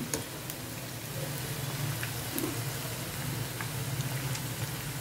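Oats manchurian balls deep-frying in hot oil: a steady sizzle with a few small crackles, over a low steady hum.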